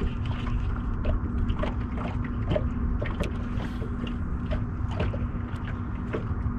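Small waves lapping and slapping irregularly against a fishing boat's hull over wind noise, with a steady low hum throughout.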